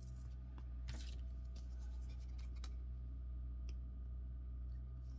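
Light scratching and a few faint clicks of a sleeved trading card being slid into a rigid plastic top loader, over a steady low hum.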